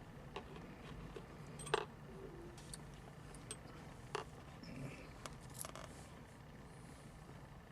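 Scattered light clicks and small rattles of small hard parts being handled: the pieces of an aluminum console-hinge repair kit with its rivets. The sharpest click comes a little under two seconds in.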